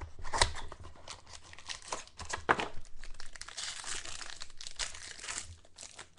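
Trading-card pack packaging crinkling and tearing as it is opened by hand, in irregular crackly bursts, with the sharpest tears about half a second and two and a half seconds in.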